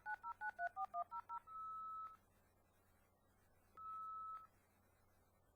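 Dial-up modem dialing out: a quick run of about nine touch-tone digits, then two steady single-pitch beeps about two seconds apart, the modem's calling tone while it waits for the other end to answer.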